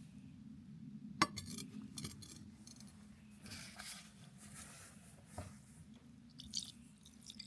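Glass clinking and a few sharp knocks, the loudest about a second in, over a low steady hum, as glassware is handled while the cube is etched.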